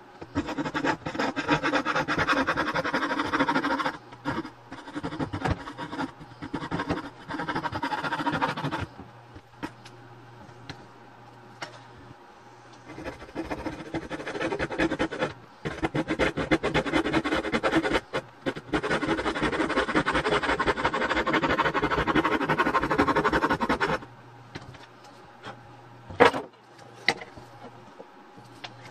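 A hand tool scraping against a wooden kit part: a rough, squeaky rasping in long runs of several seconds with short pauses, then two sharp clicks near the end.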